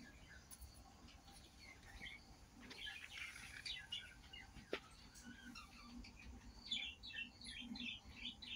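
Small birds chirping faintly in quick runs of short high notes, with one sharp click about halfway through.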